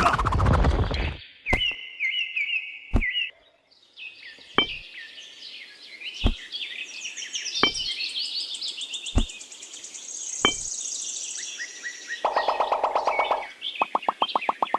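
Birds chirping and twittering, with a sharp knock about every one and a half seconds. Near the end a rapid buzzing rattle starts.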